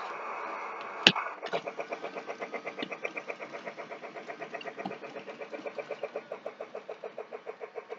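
Remote-controlled Polar Express toy steam locomotive getting under way on its track, with a sharp click about a second in and then a fast, even chuffing of about six beats a second as the train runs.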